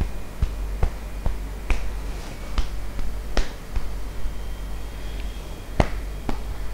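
Cupped hand patting the top of the head through thick hair: a string of sharp, hollow taps about two a second, at normal strength. The hand is held hollow, which gives the taps their sound.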